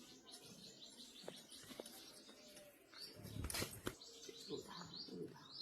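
Small birds chirping repeatedly in the background, with a brief louder rustling noise about three and a half seconds in.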